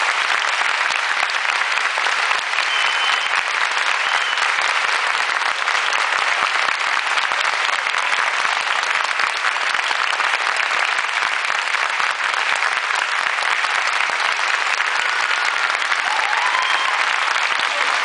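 Theatre audience applauding a cast's curtain call, a dense and steady clapping that keeps up without a break.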